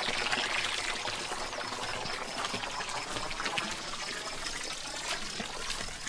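Water running and trickling steadily into a concrete water tank, a little quieter near the end.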